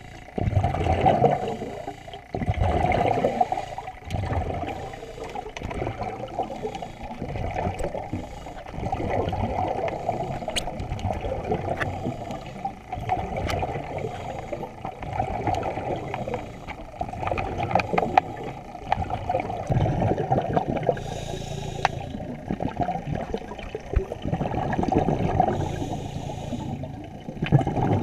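Pool water heard underwater: a muffled sloshing and churning that swells and fades, strongest in the first few seconds, with a few small sharp clicks scattered through.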